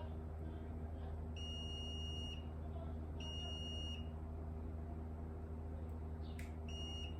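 Multimeter continuity buzzer beeping, a high steady tone: two beeps of about a second each, then two short beeps near the end. The beeps signal near-zero resistance across the key fob circuit-board parts being probed, read as a short circuit.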